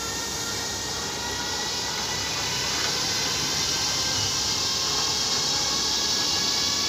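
DB Class 110 electric locomotive moving past: a steady whining rush with several fixed high tones over a hiss, growing a little louder about halfway through.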